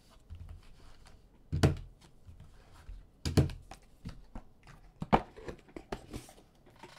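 A trading card hit box and its packs being handled and opened by hand: three sharp knocks, roughly every second and a half to two seconds, with smaller taps and faint rustling of packaging between them.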